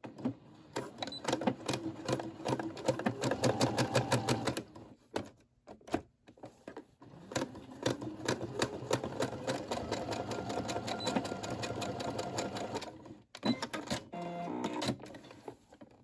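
Computerized sewing machine stitching through folded cotton fabric to box a corner: rapid, even needle strokes in two runs of several seconds with a short pause between, then a few short bursts near the end.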